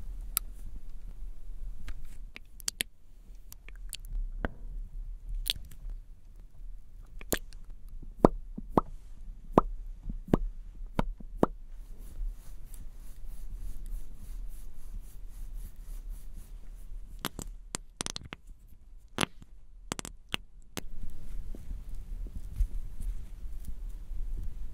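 Close-miked wet, sticky sounds of lipstick and lip gloss being worked over the lips: scattered sharp clicks, with a dense run in the middle and another near the end, over a low steady hum.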